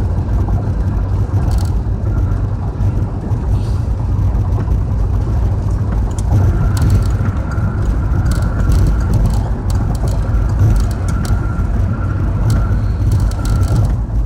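Car driving in steady road noise heard from inside the cabin: engine and tyre rumble, with scattered light ticks.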